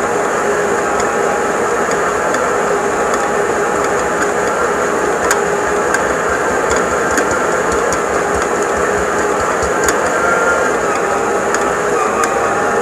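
Silvercrest stand mixer's motor running steadily with a whine, its dough hook kneading a flour-and-water bread dough, with a few light clicks.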